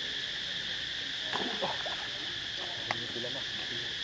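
Steady high-pitched drone of an insect chorus in the trees. A few short pitched calls rise over it about a second and a half and three seconds in, with a sharp click just before the second.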